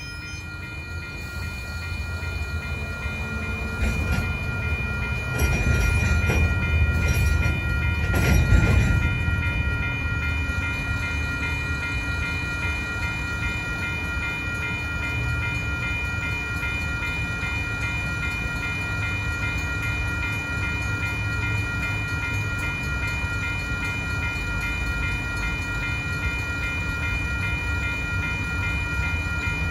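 Western-Cullen-Hayes electronic crossing bell ringing steadily at an active grade crossing, over the low rumble of a genset switcher locomotive's diesel engines. The engine noise swells for a few seconds, with a few knocks, about four to nine seconds in, then settles back to a steady rumble.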